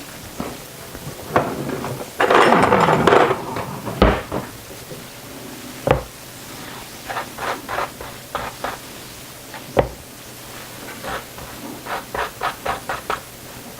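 Kitchen handling noises: sharp knocks and clatters of crockery and a cupboard. A short rush of noise comes about two seconds in, three separate knocks follow, and a quick run of light clicks comes near the end.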